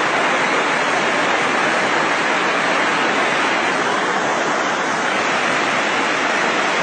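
A waterfall pouring over rock ledges close by: a loud, steady rush of falling water with no let-up.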